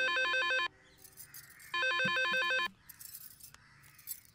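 Electronic telephone ringing with a fast warbling trill. One ring ends under a second in and a second ring follows about two seconds in, each lasting about a second, with faint small rustles and clicks between and after.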